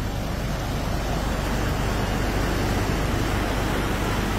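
Fast brown floodwater rushing and churning over a road embankment: a continuous, steady noise of moving water.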